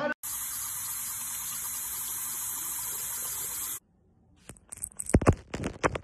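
A steady rushing hiss that starts abruptly and cuts off suddenly a little under four seconds in, followed after a short pause by a cluster of sharp knocks near the end.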